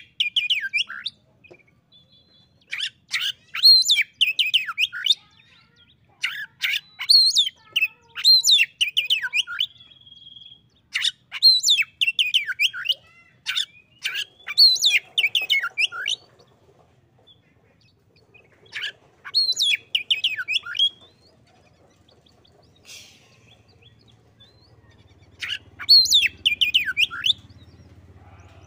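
Oriental magpie-robin (kacer) singing: loud phrases of sweeping, falling whistles, each a second or two long, repeated every few seconds with a longer pause before a last phrase near the end.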